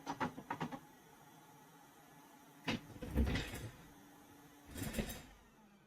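Bench tools being handled: a few small clicks near the start, then two brief knocks with rustling, about three and five seconds in.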